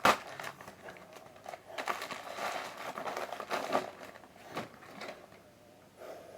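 Packaging crinkling and rustling as a parcel is unwrapped by hand, with a sharp tap at the start and another short knock a little later.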